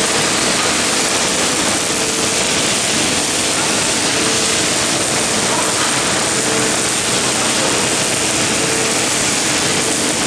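MIG welding arc of a CNC gantry welding machine, a steady, even hiss with no break.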